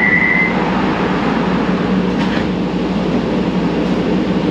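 Inside a Siemens P2000 light-rail car: a steady high door-closing warning tone stops about half a second in. The car's steady cabin rumble runs on after it.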